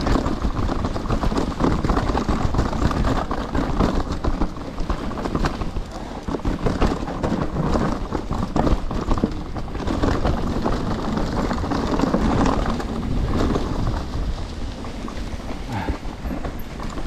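Trek Slash mountain bike riding down a rough trail: tyres rolling over dirt and roots with a steady rush of noise, and the bike knocking and rattling over each bump.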